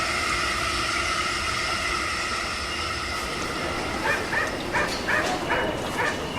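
Small dog yapping: a quick run of short barks, about three a second, starting partway through over a steady whining hum.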